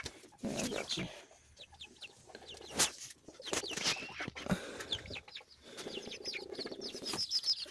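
Chickens peeping and clucking softly as they settle on a roost: many short high calls that bend up and down in pitch, with a couple of brief knocks in between.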